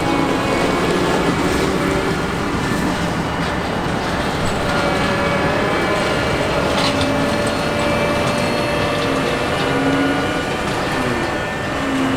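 Heavy harvest machinery running steadily: a diesel engine's drone under several steady whining drive tones.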